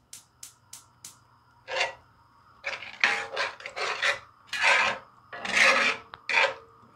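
Flat metal spatula scraping and stirring curd into a thick spice masala in a cast-iron skillet, stirred continuously so the curd does not split. Four light clicks in the first second, then repeated rasping scrapes against the pan, a stroke every half second or so.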